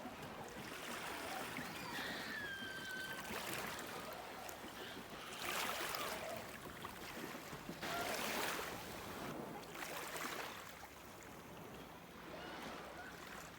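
Small sea waves washing onto the shore, the hiss swelling and easing a few times, loudest about six and eight seconds in. A faint gliding call sounds briefly about two seconds in.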